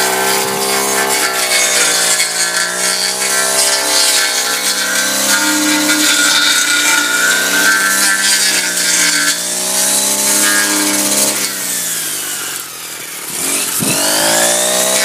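Brush cutter with a circular metal blade running at high speed, its engine pitch rising and falling over and over as the blade chops through burned shoots. About twelve seconds in the engine slows and quietens, then revs back up near the end.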